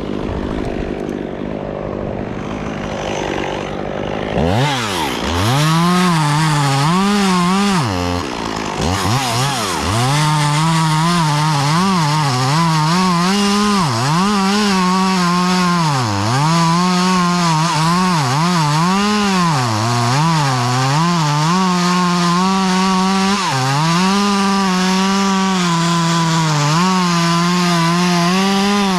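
Chainsaw idling, then throttled up about four seconds in and cutting wood, its engine pitch dipping and recovering again and again as the chain bogs in the cut.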